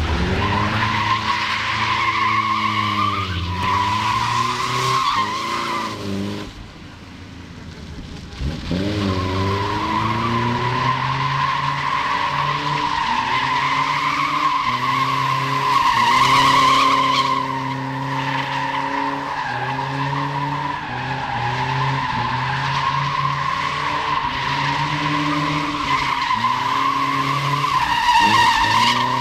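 Old Volvo saloon being drifted: the engine revs up and down while the tyres squeal almost continuously as the rear slides. The sound drops away briefly about seven seconds in, then the revving and squeal pick up again.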